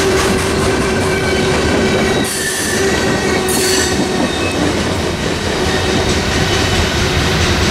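CSX freight train of hopper cars rolling past at close range: a steady rumble with a constant wheel squeal, and two short, sharp high squeals about two and a half and three and a half seconds in. The last car passes about four seconds in, and the rumble carries on as the train pulls away.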